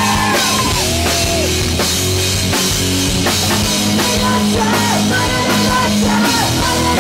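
Live pop-punk band playing at full volume: distorted electric guitar, bass and drum kit, with a woman singing the lead vocal.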